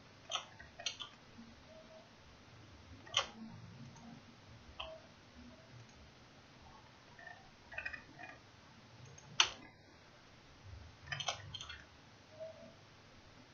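Scattered computer mouse and keyboard clicks, single or in quick clusters of two or three, a few seconds apart over faint hiss.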